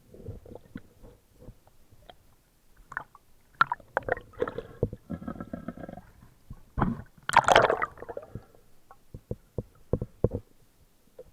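Underwater camera recording: water gurgling and sloshing with scattered knocks and clicks, and a loud rush of water or bubbles about seven seconds in.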